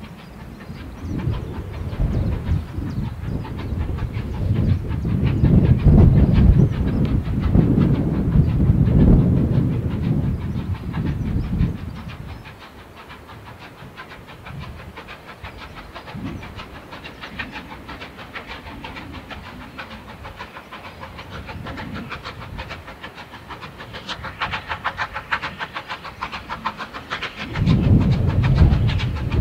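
Unrebuilt Bulleid Light Pacific steam locomotive working an engineers' train, its exhaust a loud, uneven low rumble. It falls quieter a little under halfway through and grows loud again near the end as the engine draws closer.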